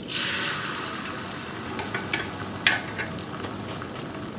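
Beaten egg poured into a frying pan of well-heated oil, sizzling loudly as it hits and settling into a steady, quieter sizzle as it spreads. A few light clicks come about two to three seconds in.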